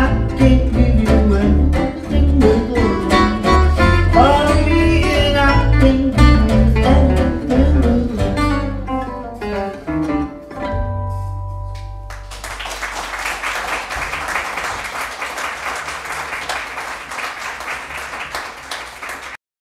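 Acoustic jazz trio of two acoustic guitars and upright double bass playing the end of a swing tune, closing on a held final chord that rings out about twelve seconds in. Audience applause follows and cuts off suddenly near the end.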